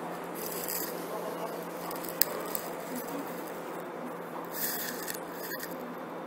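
Steady railway-platform background noise with a faint steady hum, two short bursts of hiss and one sharp click about two seconds in.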